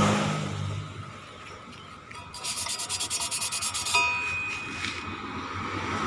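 Low engine hum fading out in the first second, then a rapid run of scraping strokes, about a dozen a second, for under two seconds. They end in one sharp metal tap that rings briefly.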